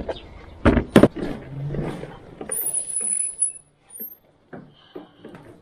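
Two sharp thumps as an electric scooter's seat is pushed shut, followed by handling noises and a short, high-pitched beep.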